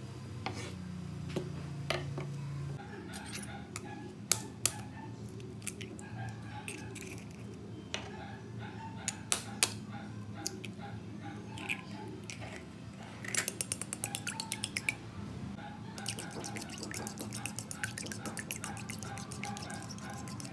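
Background music over kitchen sounds: a chef's knife tapping a wooden chopping board at the start, a few sharp taps of a metal spoon cracking an eggshell near the middle, then a metal spoon beating eggs in a ceramic bowl with fast, steady clinking through the last quarter.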